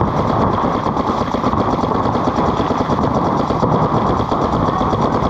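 Several paintball markers firing rapid strings of reball rounds off the break, a dense, unbroken rattle of shots.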